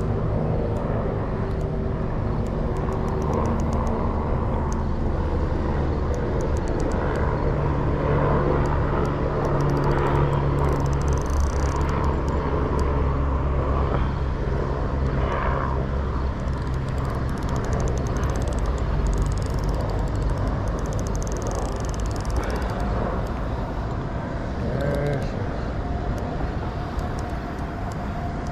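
Steady low engine drone of passing motor traffic, with a few faint scattered ticks.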